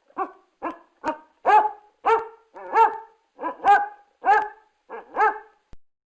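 A dog barking repeatedly, about eleven barks at roughly two a second, stopping about five and a half seconds in.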